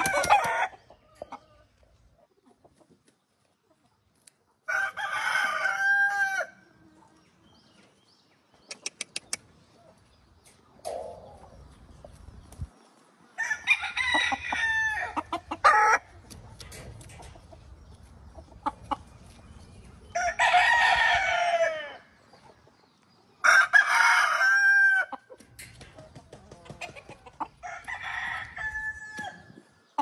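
Gamefowl roosters crowing, about five crows a few seconds apart, each a second and a half to two seconds long and ending on a held note, with quieter clucking between.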